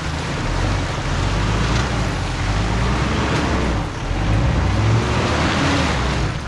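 A 4x4's engine running hard under load off-road, its pitch shifting as it revs, over a broad rush of tyre and track noise.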